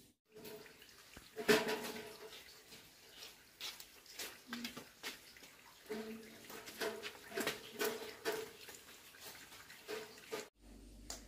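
Water splashing and sloshing in a basin, with irregular knocks and clatters as a large metal pot is handled.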